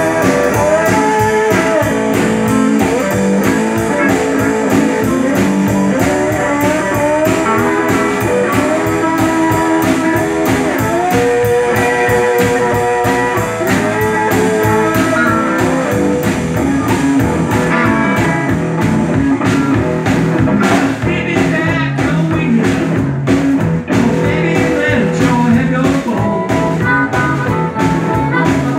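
Live blues band playing: electric guitars and a drum kit keeping a steady beat, with saxophone and a harmonica amplified through a handheld microphone carrying melodic lead lines.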